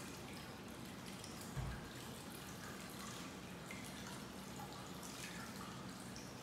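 Hot-spring water trickling into a wooden bath tub: a steady splash of running water with scattered drips. A single low thump about one and a half seconds in.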